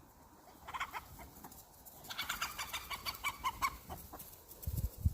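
Chickens clucking: a short burst about a second in, then a run of quick clucks. Two low thumps come near the end.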